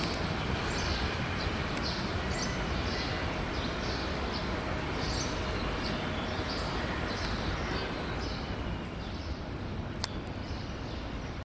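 Steady rumble of a meter-gauge commuter train running away into the distance, easing off a little near the end, while a bird chirps over and over, about two to three calls a second. A single sharp click comes near the end.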